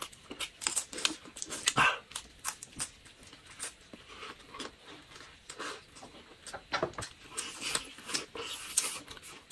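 Close-up eating sounds: irregular wet chewing, lip smacks and crunching as grilled shrimp and skewered meat are bitten and chewed.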